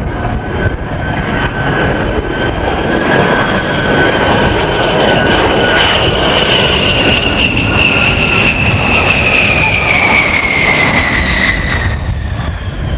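A Fairchild A-10A Thunderbolt II's twin General Electric TF34 turbofans whining over a steady jet rush as the jet passes low on its landing approach. The sound grows louder toward the middle, and the whine falls steadily in pitch in the second half as the jet goes by.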